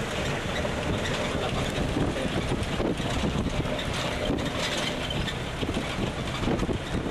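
Open tour tram running along, its low rumble mixed with wind buffeting the microphone.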